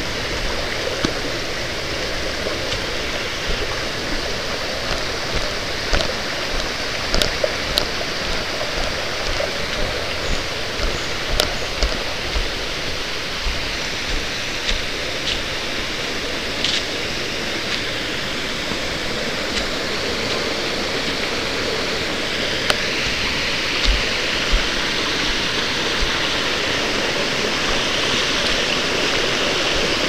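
Steady rushing of a mountain stream, growing a little louder over the last third, with the walker's footsteps thudding and crunching on a leaf-covered trail.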